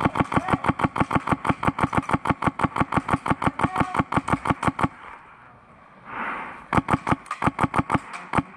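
Airsoft gun firing on full auto, about nine shots a second: one long burst lasting about five seconds, a short pause, then a second burst of about a second and a few more shots near the end.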